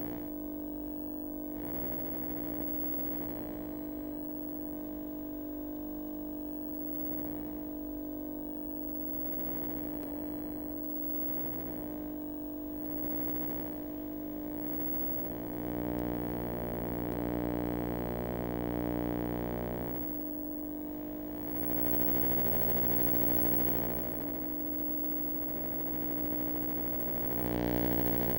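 A steady electronic drone of several held tones, strongest in a low-middle hum, swelling louder a few times in the second half.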